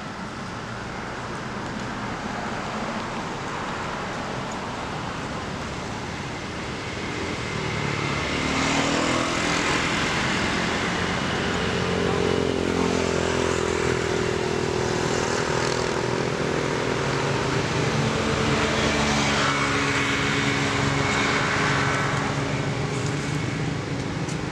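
A motor vehicle engine running over a steady background of road noise. The engine grows louder about eight seconds in, its pitch drifting slowly up and down, and eases off near the end.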